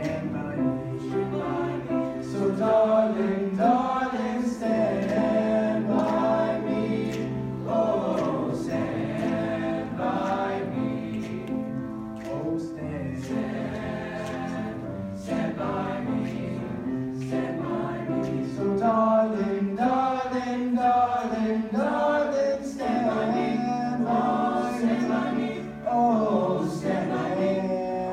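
High school choir singing in harmony, with a sustained low bass line under the upper voices.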